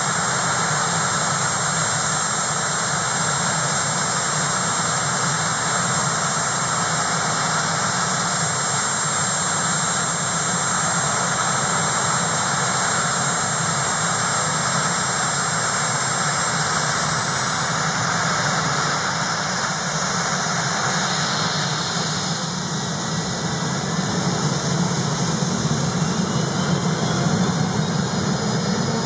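Sikorsky S-61N helicopter's twin turboshaft engines running steadily with a high turbine whine. The whine starts to climb slowly in pitch a little past halfway and keeps rising to the end.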